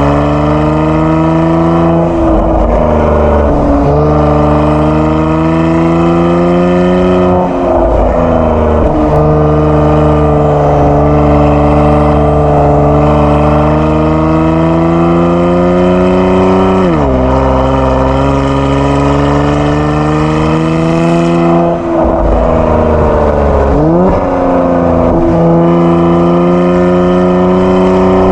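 Kia Stinger 3.3 twin-turbo V6 with a JSR Performance aftermarket exhaust, driving under acceleration: the exhaust note climbs slowly in pitch, then drops abruptly at gear changes, several times.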